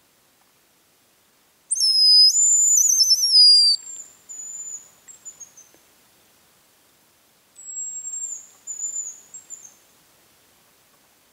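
Thin, very high-pitched hazel grouse whistled calls, three phrases in all. The first, starting about two seconds in, is loud and close: long sliding notes breaking into a trill. The next two are fainter falling whistles, each ending in a short trill.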